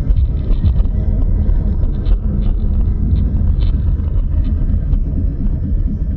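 Steady low rumble of a car's engine and tyres while driving in city traffic, heard from inside the cabin, with a few faint light ticks.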